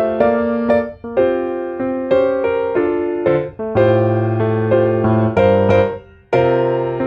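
Background piano music: a gentle melody of struck notes over low sustained notes, breaking off briefly between phrases about a second in, halfway through, and near the end.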